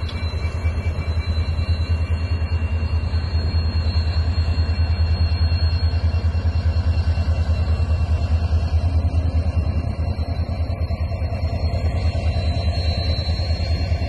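Diesel locomotive engine running with a steady, evenly pulsing low rumble as the train pulls slowly away, with a faint thin high whine over it.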